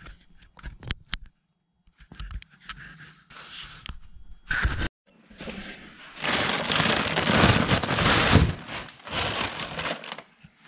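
Clear plastic bags crinkling and rustling as coilover shocks are handled in a foam-packed cardboard box, with a few sharp clicks near the start. The crinkling is loudest for a couple of seconds about six seconds in.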